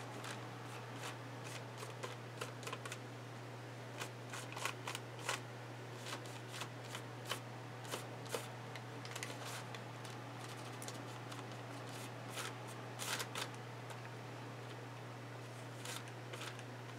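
Fingers smearing paint across a paper page in an art journal: soft rubbing with scattered light clicks and taps of fingertips and paper, in small clusters rather than a steady rhythm.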